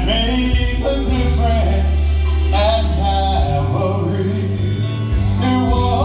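Church choir singing gospel music with instrumental accompaniment: a strong, shifting bass line under the voices, with a wavering lead voice over it from about halfway in.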